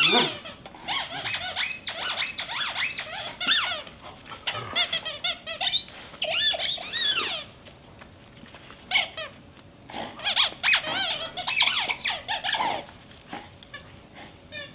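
A squeaky dog toy squeaking over and over as an English Bull Terrier chews it. The squeaks come in two long runs, with a short break about halfway through.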